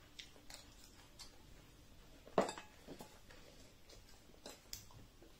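Plastic spoons clicking and scraping against ceramic bowls of food. There are a handful of light clicks, the loudest about two and a half seconds in.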